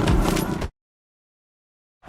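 End of a deep animal roar sound effect, presented as a rhino's roar, cutting off abruptly less than a second in and followed by dead silence.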